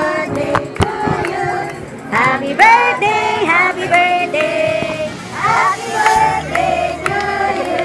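Several voices singing a birthday song together, with held sung notes.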